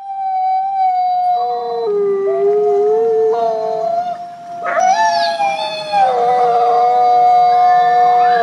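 Cats and kittens howling together with the Aracuan Bird, the Disney cartoon bird. Several long howls overlap, each held at a fairly steady pitch, with a sharp falling cry about five seconds in.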